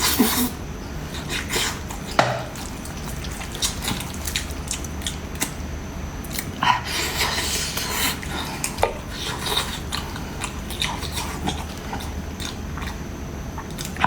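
Irregular clinks and knocks of dishes and cutlery, scattered through, more frequent around the middle.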